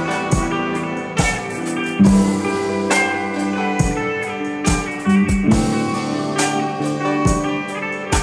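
Instrumental passage of a rock song with no singing: guitar playing sustained notes over a steady drum-kit beat.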